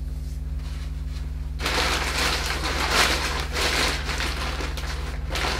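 Plastic bag of dry paper pulp rustling and crinkling as it is opened and handled, starting about a second and a half in, over a steady low hum.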